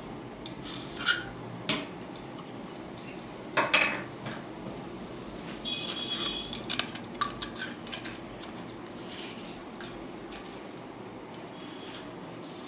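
Light metal clinks and taps as a small gold perforated-metal lantern candle holder is handled and a tealight candle is fitted inside it, with the loudest knock about three and a half seconds in and a brief metallic ring about six seconds in.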